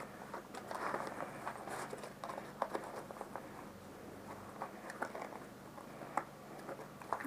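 Handling noise from a nylon Versipack pouch and its straps being worked on a bike frame: soft fabric rustling with scattered small clicks and taps.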